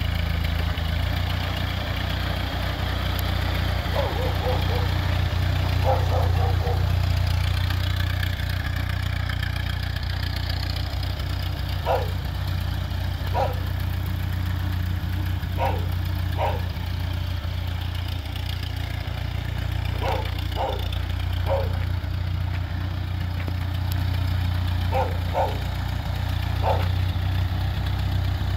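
Ford-Ferguson 2N tractor's four-cylinder flathead petrol engine running steadily at low speed as the tractor drives slowly. A dog barks now and then, in short clusters of one to three barks.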